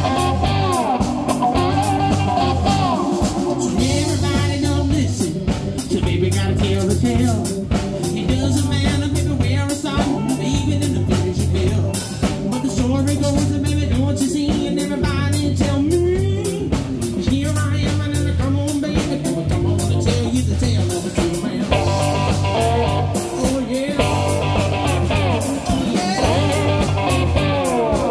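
Live blues band playing: a cigar box guitar played with a slide over electric bass and drums, with a harmonica wailing through the middle stretch.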